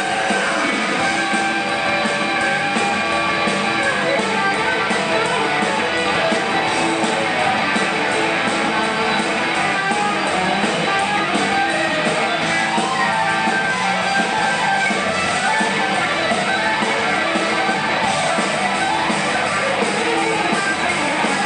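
Live rock band playing an instrumental passage, electric guitar to the fore over bass guitar and drum kit, loud and continuous.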